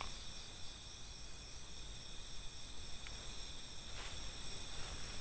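Night insect chorus: a steady, high-pitched chirring at several pitches at once, with a few faint footsteps or rustles in the undergrowth partway through.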